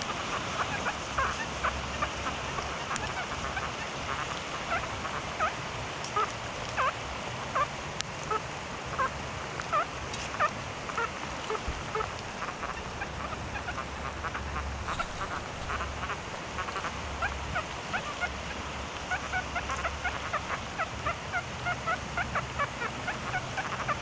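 XP Deus metal detector sounding a rapid, irregular run of short chirping tones of varying pitch as its coil is swept over the ground.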